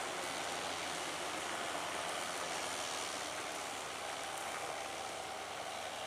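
Case IH CVX175 tractor running steadily under load as it pulls a six-furrow Kuhn plough through the ground, heard as an even rushing noise with a faint steady whine.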